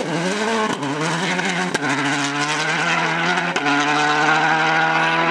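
Citroën Xsara WRC rally car's turbocharged four-cylinder engine accelerating away hard, the revs climbing and dropping through quick gear changes, then holding a steady high note near flat out. Short sharp cracks punctuate the engine note.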